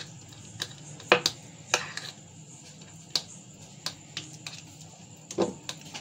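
Metal spoon clinking and scraping against a glass bowl while mashing ice cream: irregular sharp clicks, with a duller knock near the end.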